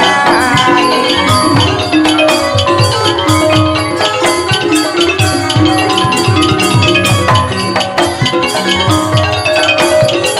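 Thai piphat mai khaeng ensemble playing an instrumental passage. Ranat xylophones and gong circles play fast running notes over steady drum strokes.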